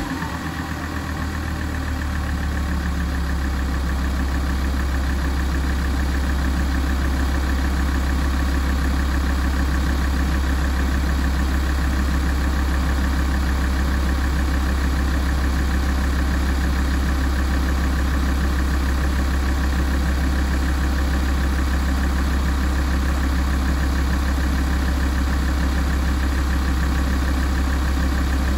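Alfa Romeo 166 2.4 JTDm five-cylinder common-rail diesel idling steadily while warming up, settling just after a rev.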